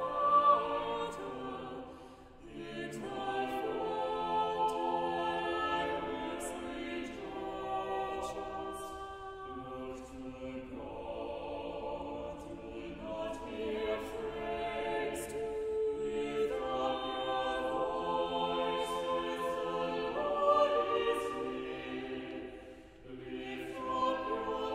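Choir singing in sustained chords, phrase after phrase, with brief pauses between phrases about two seconds in and near the end.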